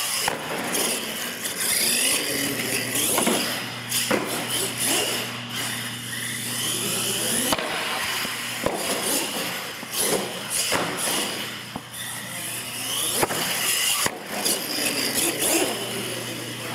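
R/C monster trucks running on a concrete floor: motors whining and revving, with repeated sharp knocks and clatter as the trucks land jumps and bounce. The sound echoes in the large hall.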